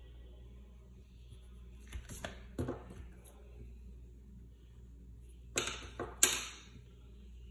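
Sharp clacks of hard objects knocking together, three about two seconds in and three more about five and a half seconds in, the last the loudest with a brief ring.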